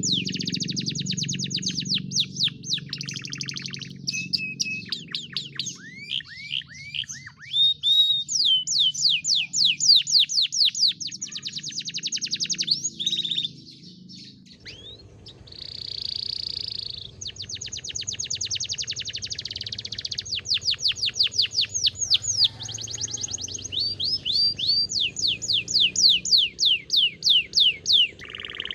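Domestic canary singing: long, fast trills of rapidly repeated down-slurred notes, changing from phrase to phrase, with a short break about halfway through and a buzzy held note just after it. A low steady hum runs underneath.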